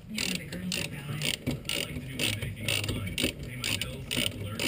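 Socket ratchet clicking in short repeated strokes, about three a second, working the 13 mm wheel-cylinder retaining bolt on a 1965 VW Beetle's rear brake.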